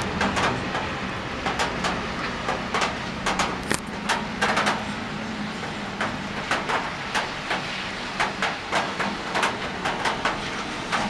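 Drops of rain and wet snow tapping irregularly on a ledge close to the microphone, several sharp taps a second. Underneath is the steady hiss of the downpour and the low hum of traffic on a wet street.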